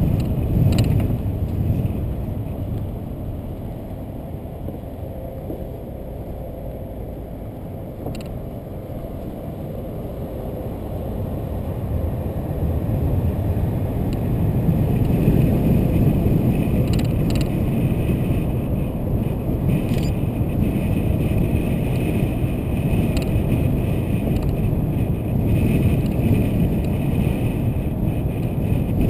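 Steady road and wind noise from a car driving along a plant road, with no distinct engine note. It grows louder about halfway through as the car picks up speed.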